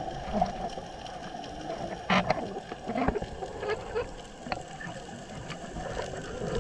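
Underwater ambience picked up by a diver's camera: a steady hiss with scattered sharp clicks, and short louder bursts about two and three seconds in.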